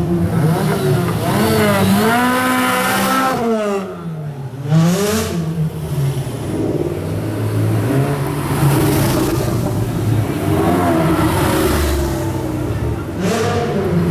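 Sports car engines revving close by as cars pull past in turn, the engine note climbing and dropping several times. A sharp, loud burst about five seconds in.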